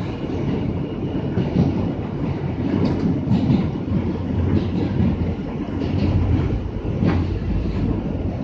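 New York City subway train running in the tunnel, heard from inside the car: a steady loud rumble of wheels and track, with a few faint clicks.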